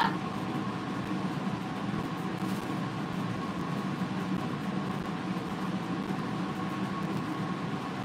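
Steady machine hum with hiss and a faint constant high tone, as from a fan or appliance running. A brief rising whistle sounds at the very start.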